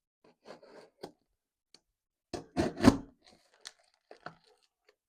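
A parcel being torn open and unwrapped by hand: a run of short, irregular tearing and crinkling sounds, loudest about two and a half to three seconds in.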